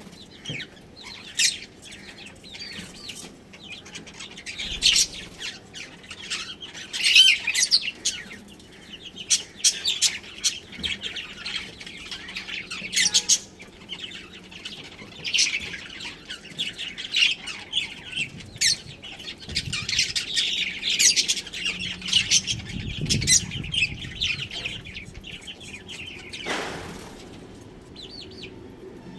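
Budgies chirping and chattering in quick, overlapping bursts, with a brief sound falling steeply in pitch near the end.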